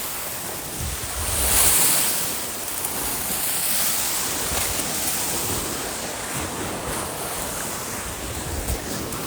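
Waves washing onto a beach, one swelling louder about a second and a half in, with wind buffeting the microphone.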